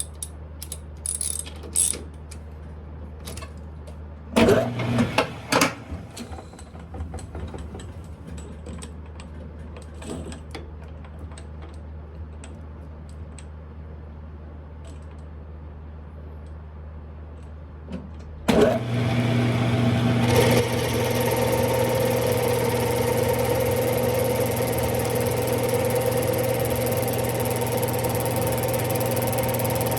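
Metal clinks and a few loud knocks from setting up a Smithy lathe. About two-thirds of the way in, the lathe's motor starts abruptly and runs steadily with a hum and whine, getting slightly louder a couple of seconds later.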